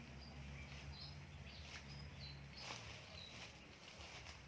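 Faint outdoor ambience: a few short, high bird chirps over a low steady hum, with a few light clicks.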